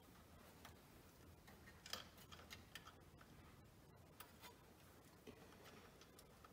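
Near silence, with faint, irregular small clicks of wire leads being handled and twisted onto the terminals of a replacement TV flyback transformer.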